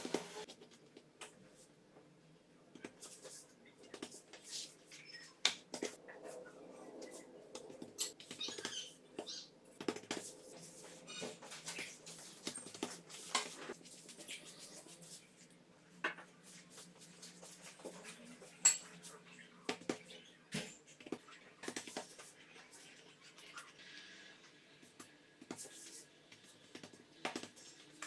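Scattered light taps, pats and soft rustles of hands working thin sheets of yeast dough on a silicone baking mat: folding a layered sheet and spreading butter over it.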